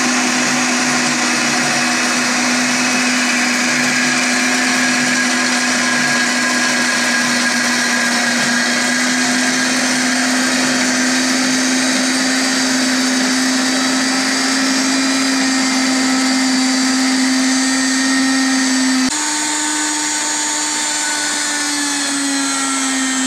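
DAKE SE 5X6 RCT benchtop horizontal bandsaw running, its blade cutting through rectangular metal tubing with a steady, loud whine. About 19 seconds in the sound changes abruptly and the pitch steps up slightly. The pitch begins to fall right at the very end.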